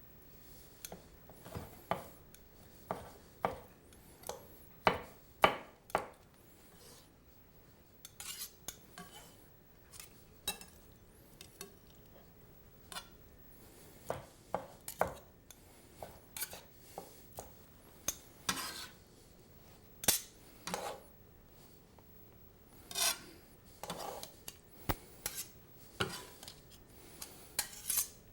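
Kitchen knife cutting cooked chicken breast into strips on a cutting board: irregular knocks and light clinks of the blade and utensils, some with a short ring.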